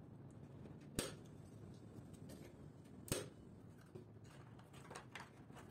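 Two sharp plastic clicks about two seconds apart as screw terminal blocks are snapped onto a metal DIN rail, followed by a few fainter clicks and taps.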